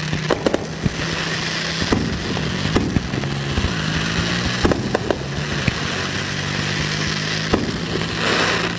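Fireworks finale: a dense, continuous crackle of many shells and comets going off together, with sharp bangs scattered all through it. A steady low hum runs underneath.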